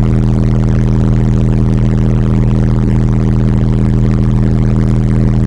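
A 40 Hz test tone, a 'burp', played at full power through car subwoofers driven by two strapped SoundQubed SQ-4500 amplifiers at about their clipping point: a loud, steady bass drone with a stack of higher overtones.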